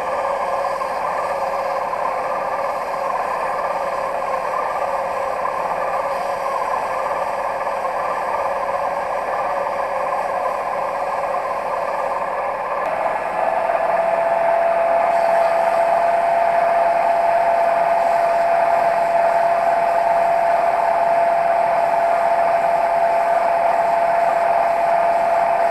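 Sieg C3 mini lathe running steadily, spinning a wooden pen blank while it is sanded with sandpaper. About halfway through the sound gets a little louder and a steady whine comes in.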